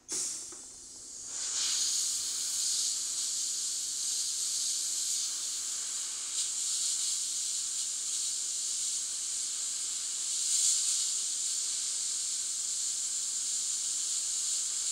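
Compressed-air blow gun on a coiled air hose hissing as it blows air across a circuit board to cool it: a short burst, a brief drop, then a continuous steady hiss.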